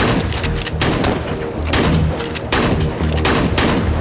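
Dense gunfire from rifles: rapid shots, several a second, in irregular volleys, over a low music score.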